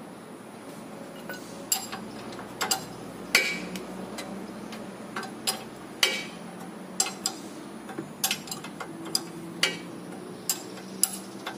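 Sharp metallic clicks and clinks, irregular and about one every half second to a second, as a spanner is worked on the 17 mm tie-rod end nut of a car's front steering knuckle, over a steady low hum.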